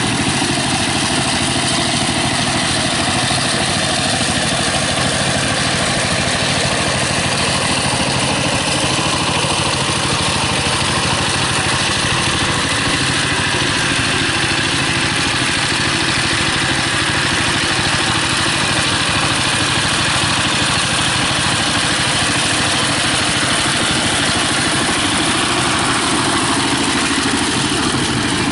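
Walking tractor's single-cylinder diesel engine running steadily as it pulls a rotary tiller through paddy mud.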